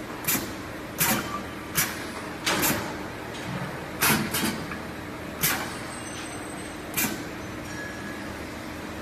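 Pneumatic spot welding machine cycling: about seven short, sharp bursts of air and clacks from its air cylinder, irregularly spaced, over a steady low hum.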